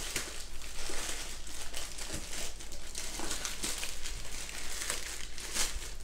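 Plastic courier mailer bag crinkling and crackling as it is handled and opened by hand, a continuous run of irregular sharp crackles.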